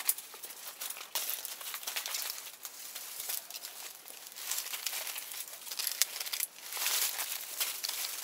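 Dry fallen leaves and stalks crackling and rustling continuously as puppies tumble, dig and play in them.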